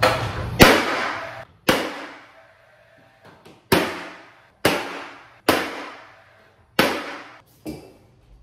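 Paslode cordless gas-powered finish nailer firing nails through door casing into the jamb: about eight sharp shots at uneven intervals, each with a brief ringing tail.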